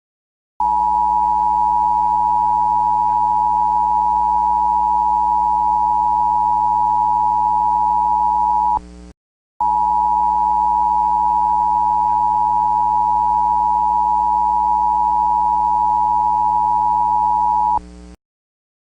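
Emergency-alert attention signal: two close steady tones sounding together, held for about eight seconds, breaking off briefly, then held for about eight seconds more.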